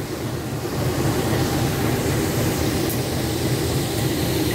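Diesel-electric locomotive idling with a steady low rumble.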